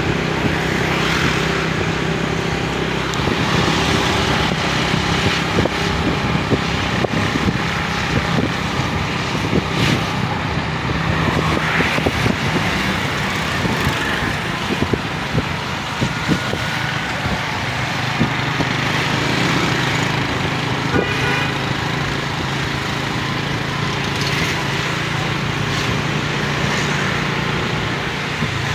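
Motorcycle engine running steadily during a ride, under a continuous rush of wind and road noise.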